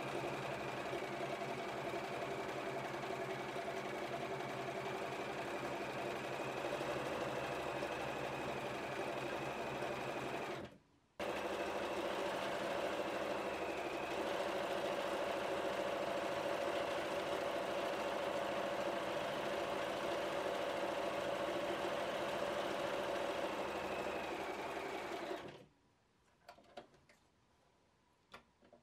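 Bernina 1230 sewing machine stitching decorative patterns at a steady speed, with a brief gap just before the middle. It stops about three seconds before the end, leaving a few faint clicks.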